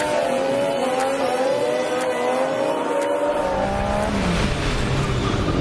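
A vehicle engine running hard at high revs, its pitch wavering up and down. About four seconds in, a lower engine note takes over and dips and rises.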